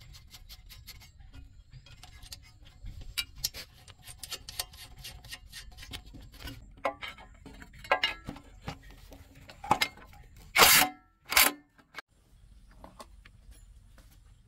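Scattered clicks and taps of small hard objects being handled, with two short bursts of hiss about ten and eleven seconds in.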